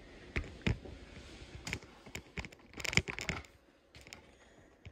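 Handling noise from a phone held against a fleece hoodie: scattered taps and rustles as the fabric rubs and bumps the microphone, with a denser rustling stretch about three seconds in before it settles.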